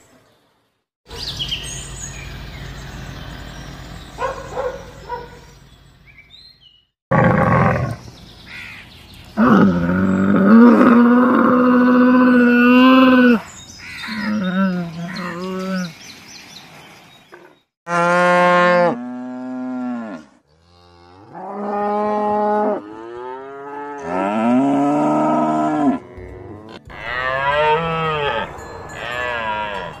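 Dairy cattle mooing: a series of long, drawn-out calls with short pauses between them, some rising and falling in pitch.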